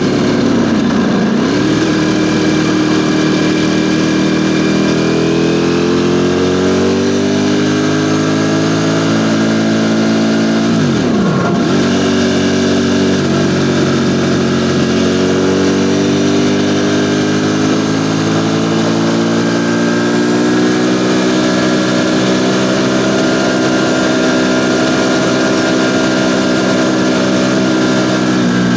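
Ducati Panigale V4 motorcycle's V4 engine running under way, its pitch slowly climbing through the gears. The pitch dips sharply and recovers twice, about a second in and again about eleven seconds in.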